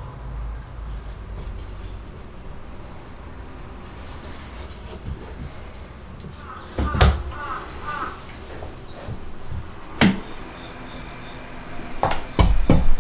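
Sharp knocks and clicks of wood or tools being handled on a workbench, two single knocks and then a quick cluster. A power tool starts near the end and keeps running.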